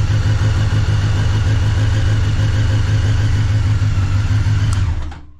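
Honda Blackbird's inline-four engine idling steadily, then switched off about five seconds in. The owner judges it to be running too rich, with black exhaust pipes.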